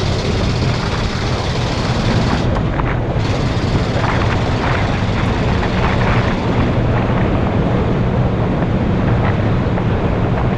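1974 Ford F600 grain truck's 361 V8, fed by a Holley 850 carburettor, running steadily while the truck drives down the road, with road and wind noise on a camera mounted outside above the cab.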